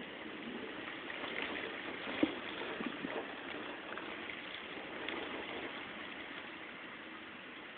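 Heavy rain falling in a steady hiss during a thunderstorm, with a few sharp taps, the loudest about two seconds in.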